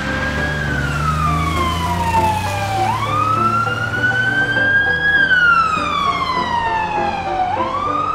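Wailing ambulance siren: one tone that falls slowly for about two and a half seconds, then sweeps quickly back up and climbs again, twice over.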